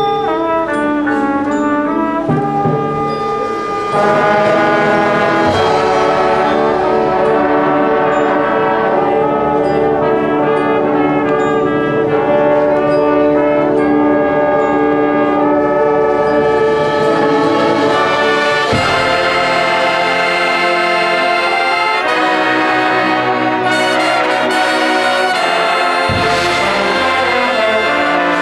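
Marching band brass section playing held, full chords, rising to a louder level about four seconds in, with changes of chord partway through.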